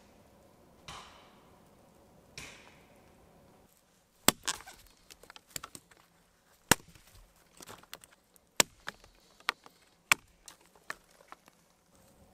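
Axe chopping wood: a few soft swishes, then sharp cracking strikes about every two seconds with lighter knocks between.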